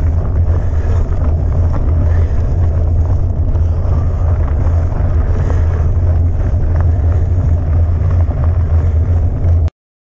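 Wind buffeting a bike-mounted camera's microphone while riding, a loud steady low rumble mixed with fat-bike tyres rolling over a gravel track. It cuts off suddenly near the end.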